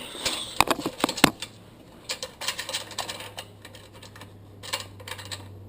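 Light clicks, taps and rattles of a throttle cable and its small metal fittings being handled and fed through, with a few sharper knocks in the first second and a half.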